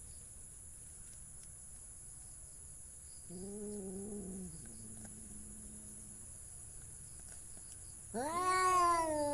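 Domestic cat meowing: a short, quiet meow about three seconds in, then a loud, drawn-out meow starting near the end, its pitch rising and then sliding slowly down.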